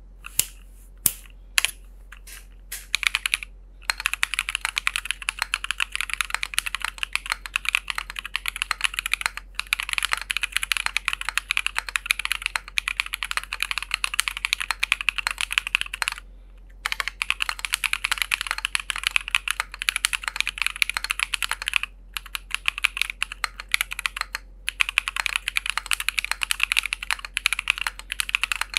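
Fast, continuous typing on a Keychron Q10 aluminium gasket-mount mechanical keyboard: a dense run of key clacks with a few short pauses, after a handful of single keystrokes at the start.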